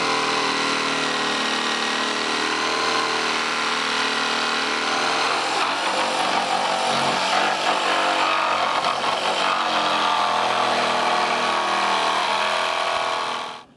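Electric jigsaw cutting through a wooden panel along a pencil-marked line, running steadily at a fairly constant pitch and stopping abruptly near the end.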